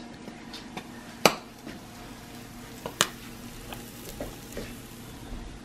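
Eggs frying in a pan on a gas stove with a steady sizzle. Several sharp knocks stand out over it, the loudest about a second in and another about three seconds in.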